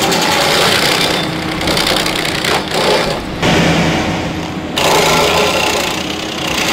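Heavy machinery running hard: a loud, dense mechanical grinding and rattling noise over a running engine, which changes character abruptly three times.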